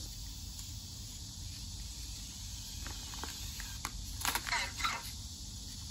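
Anki Cozmo toy robot making a few light clicks, then a brief electronic chirp about four seconds in, over a steady background hiss.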